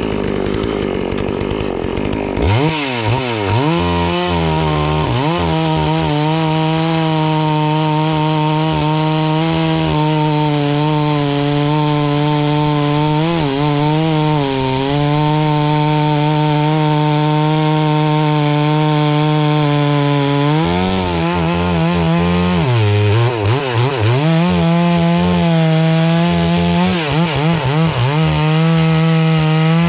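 72cc two-stroke FarmMac F380W chainsaw with a 28-inch bar, run up to full throttle about two seconds in and cutting through a large poplar log. Its engine pitch dips and recovers several times as the chain loads up in the wood, most often near the end.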